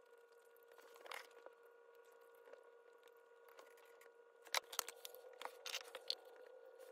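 Light taps, clicks and paper rustling as books are handled on a wooden desk, the sharpest two close together a little past the middle, over a faint steady hum.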